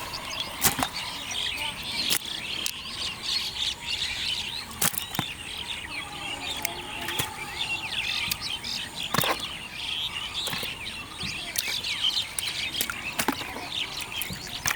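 Many small birds chirping busily and continuously, with about five sharp clicks spread through it.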